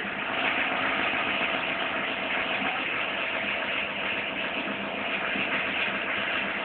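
Citroën Xantia 1.9 turbodiesel engine idling steadily from a cold start, with a strange noise from the auxiliary drive belt area that the owner links to the crankshaft damper pulley.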